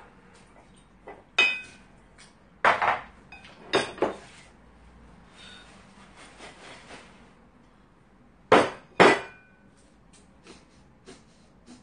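Ceramic dishes clinking and knocking against each other and the table as they are handled, several sharp clinks with brief ringing, in two groups about five seconds apart. Softer rustling of a bag between them.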